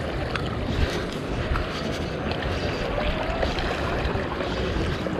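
Sea waves washing against the rocks of a harbour breakwater, a steady noisy wash with a low rumble of wind on the microphone.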